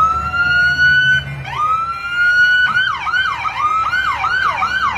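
Emergency vehicle siren, loud. It gives two rising wails, then switches to a fast yelp of quick up-and-down sweeps, about two or three a second, and starts a rising wail again near the end.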